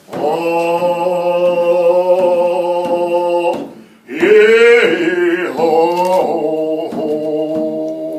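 A man singing a Coast Salish hand-drum song in long held notes while beating a hide frame drum in a steady pulse. The first note is held for about three and a half seconds, breaks off briefly, then a louder phrase begins that rises and falls in pitch.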